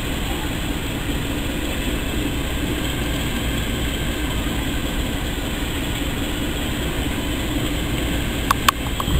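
Steady low rumble of railway locomotives running close by, a diesel locomotive and a steam tank engine, with a few sharp clicks near the end.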